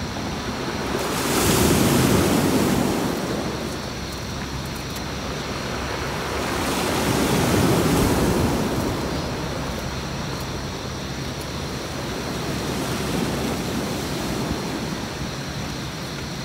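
Sea waves breaking and washing up a beach in slow surges, the biggest about two and eight seconds in and a smaller one near the end.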